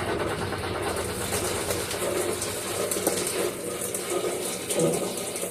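Electrolux Turbo Economia LTE09 washing machine draining during its spin cycle: a steady rush of water pouring out as the drain pump runs.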